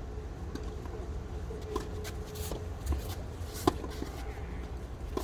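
Tennis ball being hit and bouncing during a doubles rally: a few sharp pops spaced a second or so apart, the loudest about three and a half seconds in, over a steady low rumble.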